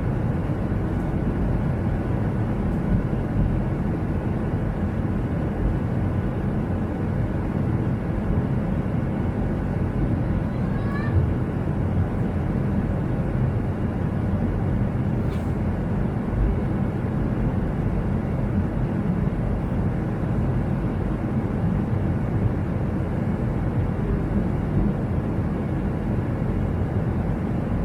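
Steady rumble of an airliner's jet engines and rushing air heard inside the passenger cabin after takeoff, an even noise with no breaks.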